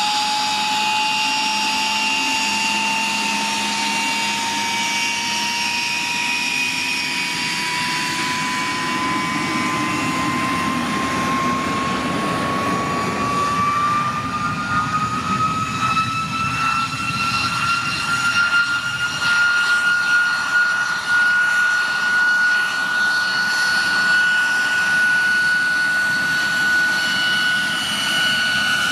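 De Havilland Vampire's jet engine whining as the jet taxis, the whine rising in pitch over about ten seconds and then holding steady. Around the middle a second taxiing jet, a BAC Strikemaster, passes close and adds a rougher, uneven rush.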